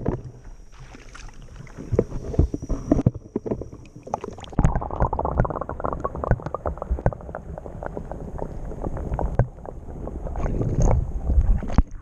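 Creek water splashing and sloshing around a camera as it is dipped under the surface, then the muffled underwater rumble with scattered small clicks that a submerged camera picks up.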